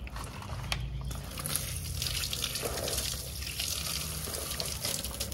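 Water running and splashing steadily over plastic toy vehicles as they are rinsed, with a few small knocks.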